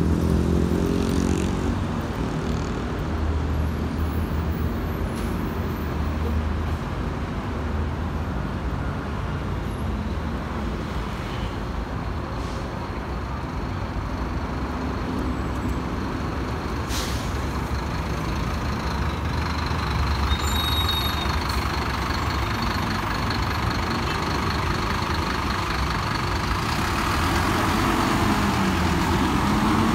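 City bus engines running and moving past in a steady low drone, with one engine revving up near the end.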